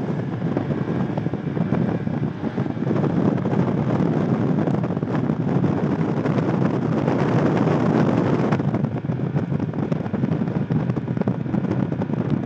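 A bass boat running across a lake at speed: wind rushes over the microphone and the outboard motor drones steadily underneath, with the hull rushing through the water.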